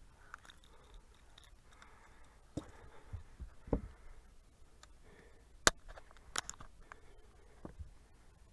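Scattered faint clicks and a few sharper knocks, the loudest a little past the middle: small handling noises over a quiet background.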